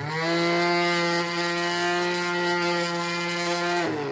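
Small battery-powered electric knife sharpener's motor spinning up into a steady whine as a knife blade is held in its grinding slot, with a higher grinding hiss over it, then spinning down near the end.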